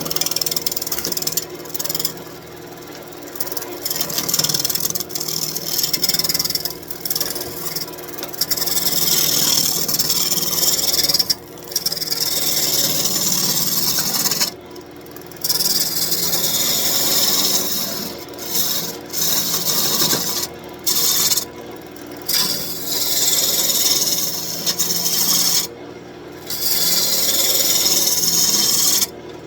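Roughing gouge cutting a spinning birch branch on a wood lathe to round it: a rough, rasping hiss of the cut that stops briefly several times as the gouge comes off the wood, over the lathe's steady hum.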